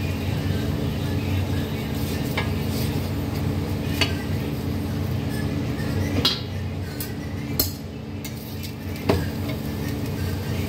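Spatula stirring in a steel bowl, clinking sharply against the metal about four times, over a steady low hum.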